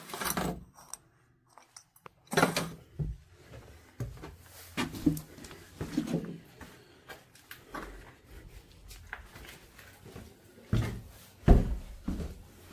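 Irregular knocks and clattering of hard objects, with a few heavier thuds; the loudest knocks come near the end.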